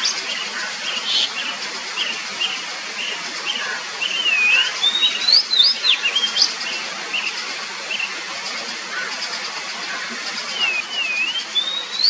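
Oriental magpie-robin singing: a string of short whistled notes, broken by looping whistles that dip and rise in pitch about four to seven seconds in and again near the end, over a steady background hiss.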